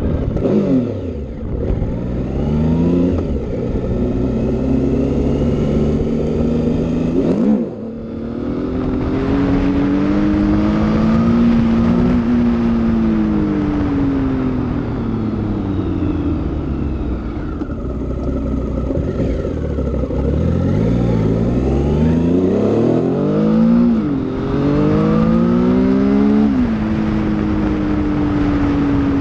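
Triumph Speed Triple's inline three-cylinder engine pulling hard through the gears, its pitch climbing and then dropping at each shift. The revs cut sharply about eight seconds in, then build again, with several quick rises and drops in the second half.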